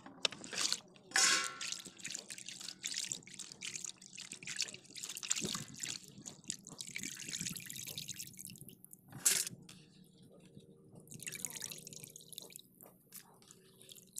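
Cut fish pieces being washed by hand in a plastic basin of water: irregular splashing and dripping as the pieces are rubbed, squeezed and lifted and water runs off them back into the basin. The biggest splashes come about a second in and again around nine seconds.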